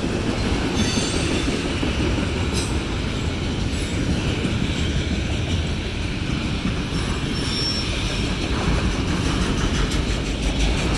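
Freight train's autorack cars rolling past: a steady rumble of steel wheels on the rails, with faint high wheel squeals now and then.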